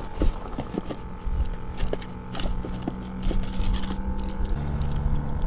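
Fishing tackle being handled in a soft tackle bag: rustling and a scatter of small sharp clicks as gear is rummaged and pulled out, over a steady low hum and rumble.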